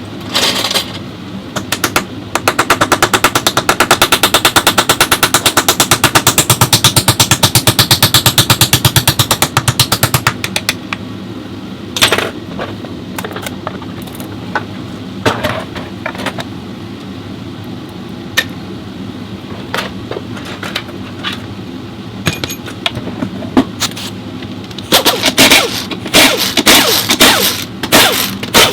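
Pneumatic impact wrench hammering in a long, fast, even run of about eight seconds. Scattered single knocks and clicks of tools and parts follow, and several short bursts of the wrench come near the end.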